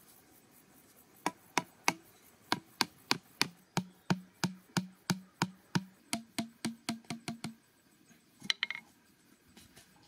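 The back of a hatchet head striking the top of a blue PVC pipe again and again, driving it upright into the soil: about twenty sharp blows, roughly three a second and quickening near the end. Each blow is followed by a short ringing tone. There is a brief clatter near the end.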